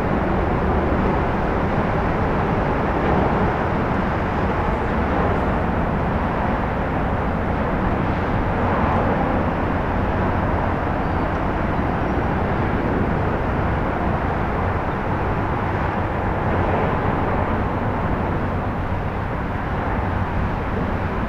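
Jetfoil (high-speed jet boat) cruising slowly hull-borne with its foils extended, giving a steady rushing noise from its gas turbines and water jets.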